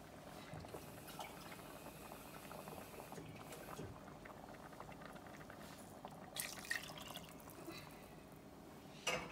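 Faint liquid sounds of water being poured into a pot of mutton curry, with a few light knocks, the sharpest one near the end.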